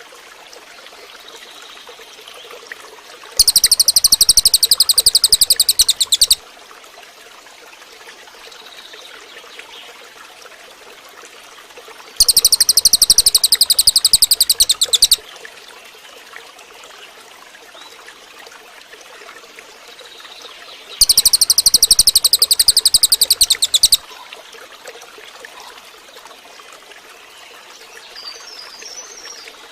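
Cililin bird giving three loud, rapid rattling trills, each about three seconds long and coming roughly every nine seconds, with faint softer chirps in between.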